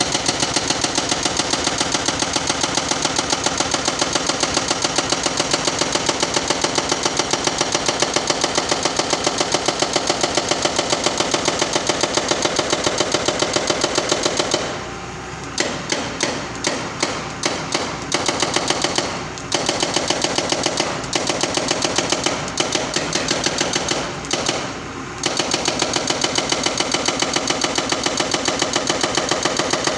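Excavator-mounted hydraulic breaker on a Doosan machine hammering a pile: a fast, even run of blows, several a second, over the excavator's running engine. From about the middle, the hammering stops and restarts in short bursts several times, then settles back into a steady run for the last few seconds.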